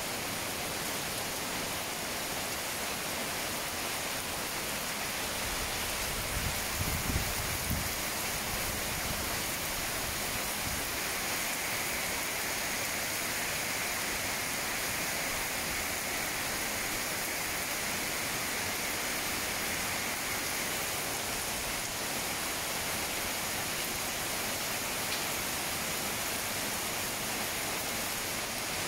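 Steady rain falling, an even hiss throughout. A brief low rumble about six to eight seconds in.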